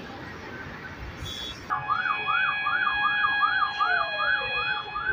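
Emergency vehicle siren starting abruptly about two seconds in, a fast yelp rising and falling about three times a second, with a second, slower siren wail falling in pitch near the end. Before it, only steady street noise.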